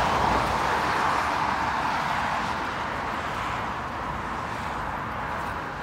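Road traffic noise from a passing vehicle: the tyre and engine noise fades away over a few seconds, leaving a quieter steady hum of traffic.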